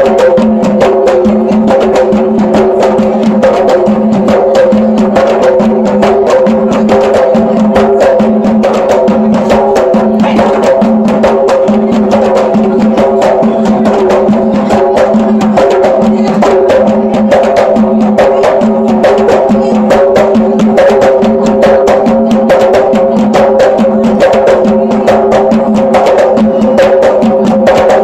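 A kompang ensemble: many Malay hand-held frame drums struck with the open palm in a fast, dense, interlocking rhythm, with a steady ringing drum tone underneath.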